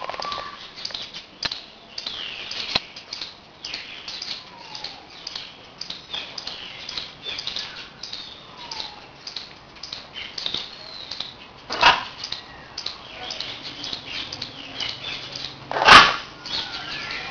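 Blue-and-gold macaw squawking loudly twice, about twelve and sixteen seconds in, the second squawk the louder. Many short, high chirps from other birds run underneath.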